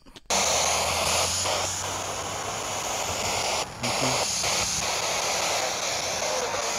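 A spirit box scanning radio frequencies: a steady hiss of radio static that cuts in suddenly, with faint breaks and one brief dropout about three and a half seconds in.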